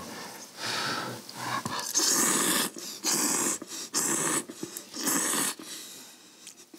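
Instant ramen noodles being slurped in by mouth, a run of long, noisy sucking slurps, about one a second, dying away near the end.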